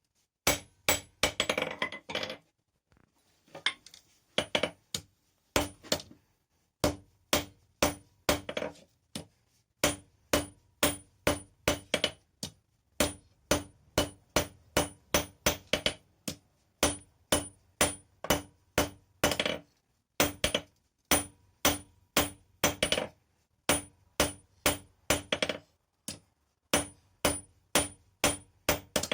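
Hand hammer striking steel on an anvil in forging blows, about two to three strikes a second in runs broken by short pauses, each blow ringing briefly.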